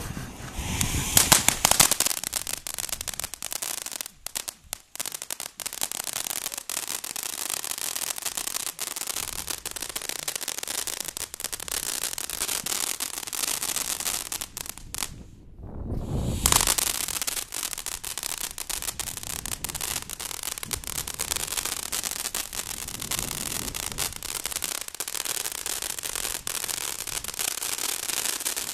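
Volcano-type ground fountain firework spraying sparks with a continuous crackling hiss, starting loud about a second in. It falters briefly twice, nearly dropping out about halfway through, then surges back and keeps crackling.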